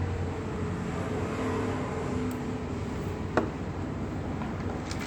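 Steady low background hum with one sharp click about three and a half seconds in, from small parts of a Toyota ignition lock cylinder being handled during disassembly.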